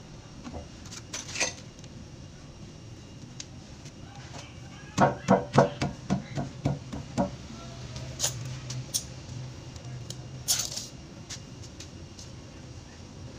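Hands fitting a rubber gasket onto the outlet of a porcelain toilet. About halfway through comes a quick run of about nine knocks, roughly three or four a second, as the gasket is pressed and patted into place, with a few sharp clicks of handling on the porcelain.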